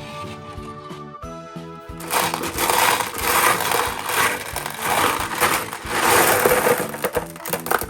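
Light background music; from about two seconds in, a loud rough whirring noise comes in over it, swelling and fading about once a second, then stops at the end.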